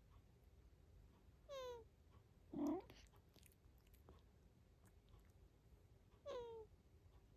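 A sleeping cat snoring: two short, high, squeaky whistles falling in pitch, about five seconds apart, with a louder brief sound about a second after the first.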